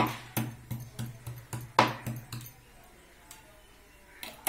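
Kitchen knife chopping on a wooden cutting board in quick, even strokes, about three a second. The chopping stops about two and a half seconds in, and there is one more knock near the end.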